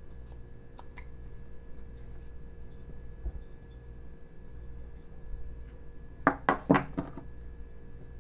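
A few faint knife cuts in basswood, then a quick clatter of three or four knocks about six seconds in as the carving knife is set down on the wooden workbench.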